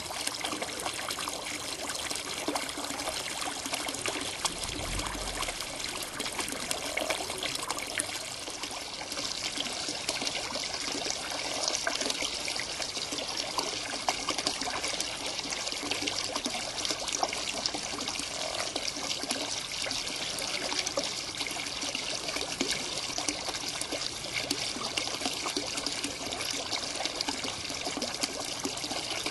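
Steady trickling and splashing of water into a garden pond from a pump outlet, with a few soft, low croaks of common frogs now and then. A brief low thump comes about five seconds in.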